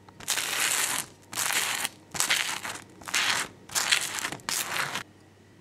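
Blue plastic butter knife spreading butter across crisp toast: six scraping strokes, each about half a second long, with short gaps between them.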